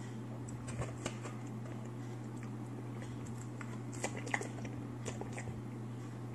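Faint taps and clicks of wooden chopsticks picking at sushi in a paperboard box, a handful of them scattered through, over a steady low hum.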